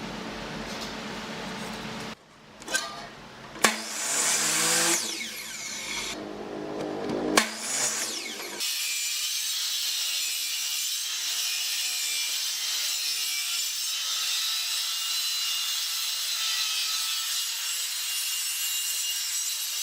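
Pallet wood being sawn and worked with tools, in several short clips that cut abruptly from one to the next, with a few sharp knocks. From about halfway in there is a long, steady, high-pitched sawing noise.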